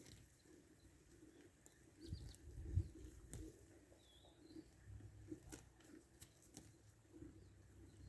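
Faint outdoor ambience: low rumbles with a few faint, short bird chirps.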